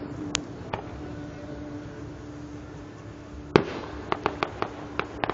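Fireworks going off: two sharp pops early, one loud bang about three and a half seconds in, then a quick run of sharp cracks near the end, over a steady low hum.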